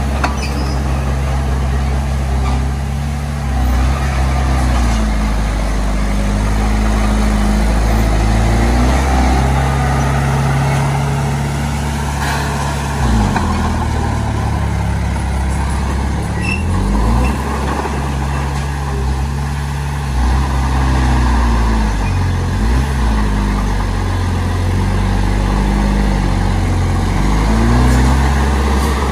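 Heavy diesel earthmoving engine running under varying load, its speed rising and falling several times as the machine works.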